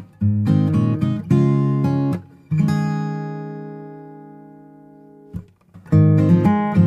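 Background music of strummed acoustic guitar chords. In the middle one chord is left ringing and slowly fades for about three seconds, then the strumming starts again near the end.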